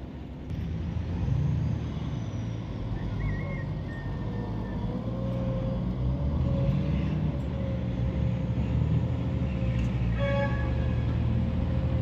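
Heavy diesel machinery, a wheel loader and a log truck, running steadily with a low rumble. A steady whine joins about halfway through, and a short, higher-pitched sound made of several tones comes about ten seconds in.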